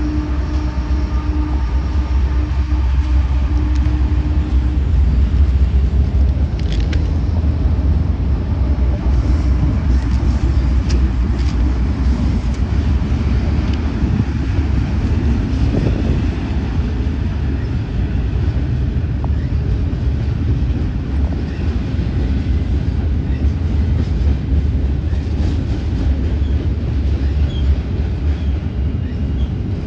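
Freight train rolling past with its diesel locomotives, a loud, deep, steady rumble. A steady tone sounds over it for the first five seconds or so, and scattered clicks come in the middle.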